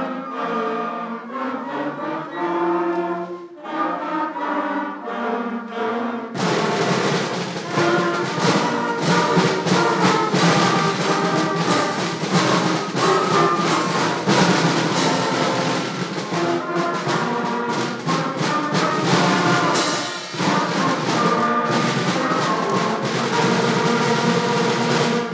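School concert band of woodwinds, brass and percussion playing. About six seconds in it swells to full volume with repeated percussion strikes, and the music ends near the close.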